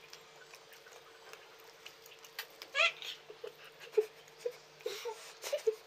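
Close-up eating sounds: chewing and lip smacks with wet mouth clicks while eating rice and chicken curry by hand, over a faint steady hum. About three seconds in, a short high squeaky call rises briefly.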